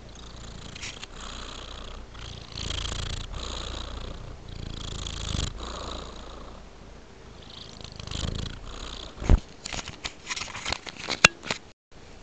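Domestic tabby cat purring close to the microphone, the steady rumble swelling and fading with each breath. In the last few seconds several sharp clicks cut through, the loudest about nine seconds in.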